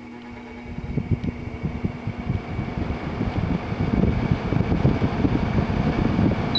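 TCL 5,000 BTU air conditioner starting up: its fan comes on about a second in and the rush of air grows steadily louder. The start-up sounds a little iffy.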